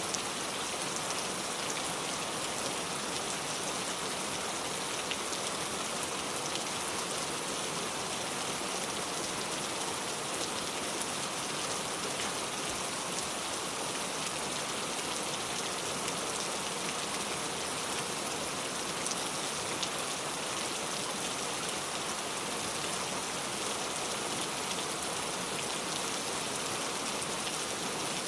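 Steady rain falling, a constant patter of drops on surfaces with fine crackling detail and no thunder.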